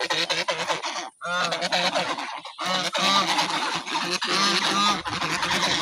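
A flock of domestic waterfowl honking, many loud calls overlapping, with a brief pause a little after a second in.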